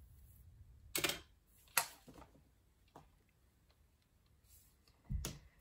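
Handling noise from styling hair with a corded curling iron: two sharp clicks, about a second in and just under a second later, a faint tick around three seconds, and a low thump near the end.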